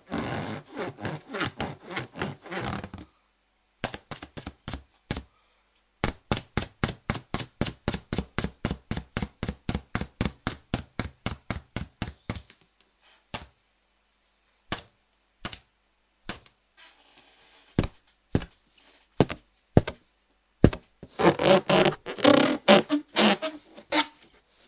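Fingers rubbing and squeaking on an inflated rubber balloon in quick repeated strokes, with a steady run of about five squeaks a second in the middle, then scattered single squeaks with gaps of silence, and denser rubbing near the end.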